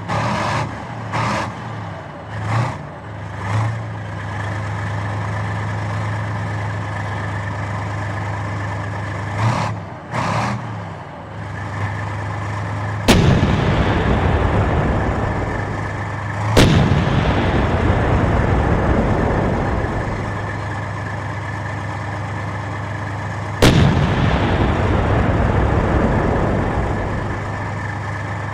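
Tank engine running with a steady low hum, revving in several short surges near the start and again about ten seconds in. The tank's main gun then fires three times, the second shot about three and a half seconds after the first and the third about seven seconds after that, each followed by a long fading echo.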